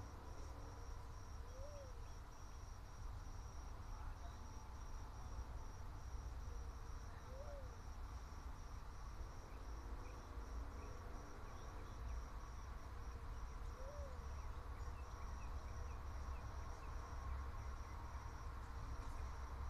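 Insect chirping: a high, thin note pulsing steadily a couple of times a second, over a faint low rumble.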